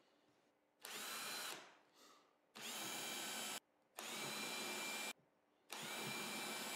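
Cordless drill boring into plywood in four short runs. Each run opens with a quick rising whine as the motor spins up, then holds steady. The first run winds down slowly and the other three stop abruptly.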